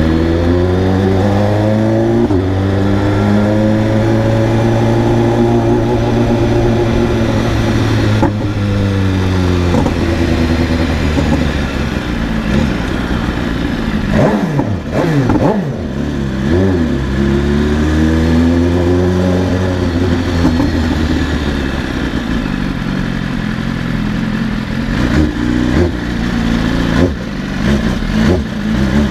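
BMW S1000RR inline-four sport-bike engine revving hard in a road tunnel. Its exhaust note climbs and drops in pitch several times, with a tangle of crossing tones about fifteen seconds in.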